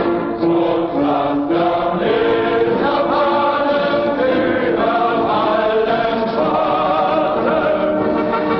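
Choral music: a choir singing long held notes over accompaniment.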